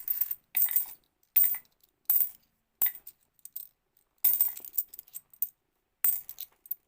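50p coins clinking against one another as they are handled and sorted by hand: a sharp metallic clink or small cluster of clinks every half second to second, with a quicker run of clinks about four to five seconds in.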